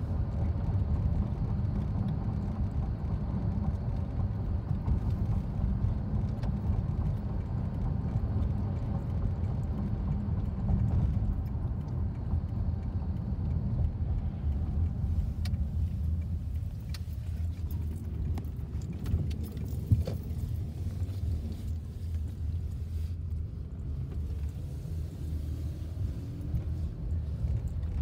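Road noise inside a moving car's cabin: a steady low rumble of tyres and engine that eases a little near the end as the car slows, with a few light clicks and one sharp knock about twenty seconds in.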